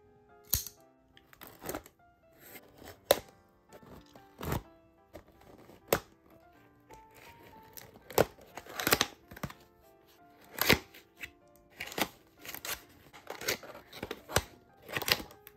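Small cardboard toy box being slit open with a blade and its end flap pried up: irregular sharp snaps, crackles and tearing of the paperboard. Quiet background music plays underneath.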